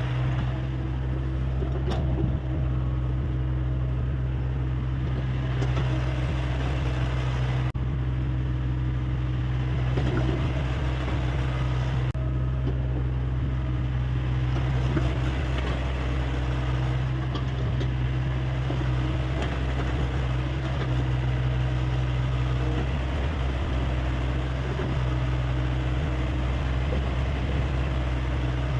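Hyundai 85A excavator's diesel engine running at a steady, constant speed, a low hum that holds throughout.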